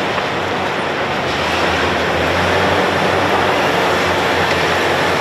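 Hitachi demolition excavators working with crusher attachments: a steady, dense machine noise over a low engine hum, getting slightly louder about two seconds in.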